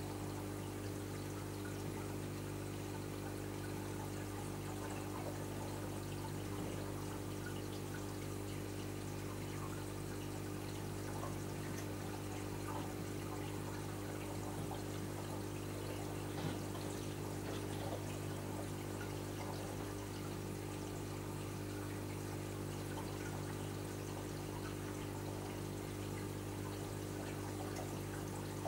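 Reef aquarium's water circulation: a steady trickle and splash of moving water, over a low, unchanging electric hum from the tank's pumps.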